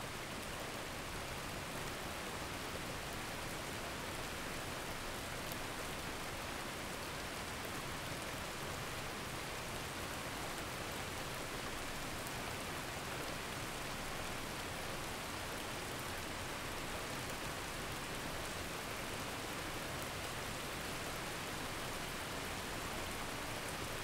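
Steady rain sound, an even unbroken hiss with no change in level, used as the masking track of a subliminal recording.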